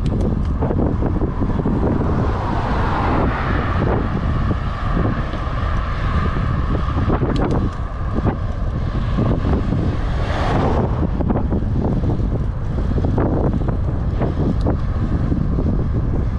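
Wind buffeting the microphone of a helmet-mounted camera on a moving bicycle, a heavy steady rumble. A higher rushing sound swells through the middle and fades out about eleven seconds in.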